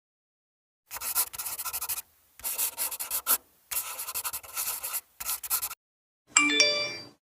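Scratchy rubbing sound effect in four short bursts of rapid strokes, in the manner of quick scribbling. It is followed near the end by a brief sparkly chime of several bright tones.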